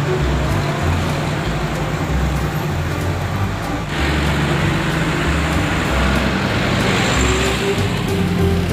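Pneumatic-tyred road roller's diesel engine running with a continuous rumble. The noise grows broader and louder about four seconds in.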